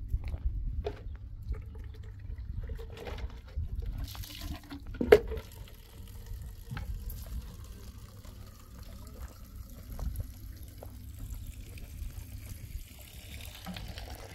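Water trickling and splashing on the ground at an outdoor water spot, growing near the end, over a steady low rumble and scattered clicks. One sharp knock about five seconds in is the loudest sound.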